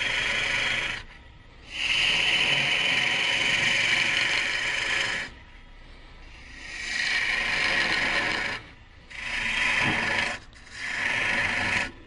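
A gouge cutting green wood turning on a Jet Mini lathe: a steady hiss as shavings peel off the goblet stem, in five passes with short breaks between them. The cuts run downhill from the high point to the low point.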